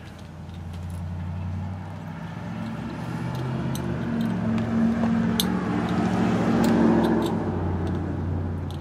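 A motor vehicle's engine running, its hum growing louder until about seven seconds in and then easing off, with a few sharp clicks over it.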